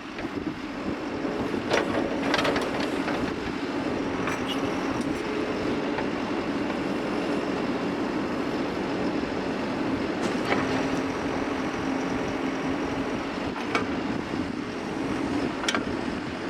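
John Deere 410L loader backhoe's diesel engine running steadily, with a few short sharp knocks scattered through.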